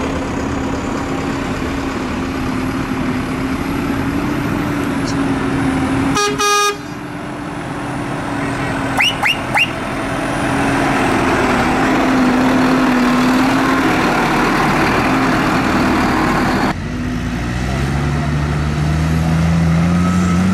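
Large modern tractor diesel engines running as the tractors drive across a field. A vehicle horn sounds once, about half a second long, about six seconds in, three short high chirps follow about three seconds later, and near the end another engine's note rises as it pulls away.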